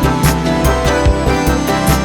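Upbeat background music with a steady beat of drum hits and pitched instruments.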